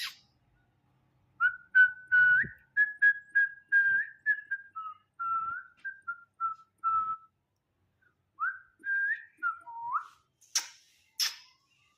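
Grey francolin calling: a rapid run of short, clear whistled notes, many with an upward flick, a brief pause, then a few more notes. Two sharp clicks come near the end.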